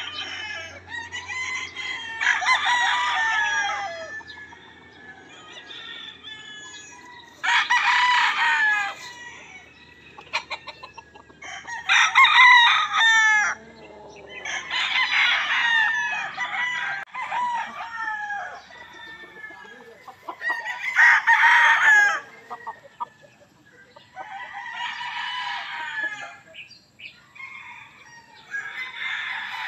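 Gamefowl roosters crowing one after another, a crow every three to five seconds, each call held for one to two and a half seconds with a falling end.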